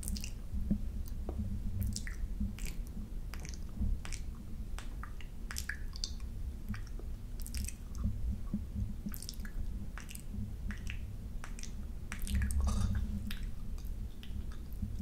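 Close-up wet mouth sounds of a tongue and lips licking a camera lens: an irregular run of short wet clicks and smacks, several a second.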